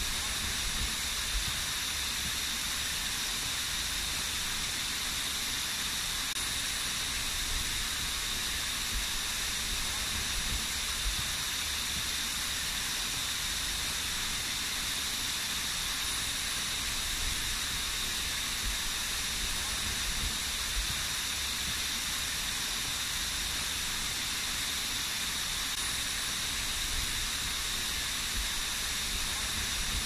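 Small waterfall splashing down a rock face: a steady, even rush of falling water with a low rumble underneath.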